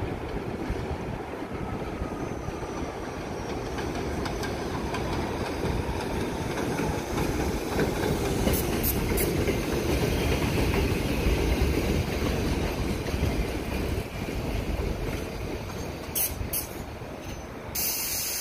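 An R62A subway train pulling into an elevated station: a steady rumble with wheels clacking over the rail joints, growing loudest as the cars pass close by and easing as the train slows to a stop. A short burst of air hiss comes near the end as it halts.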